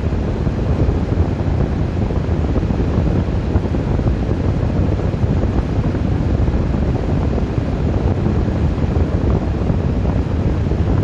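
Strong wind buffeting, a steady deep rumble with constant gusty flutter and no let-up.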